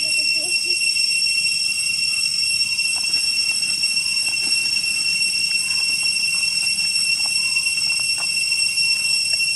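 Cicadas droning in a steady, high-pitched whine, with a few faint clicks.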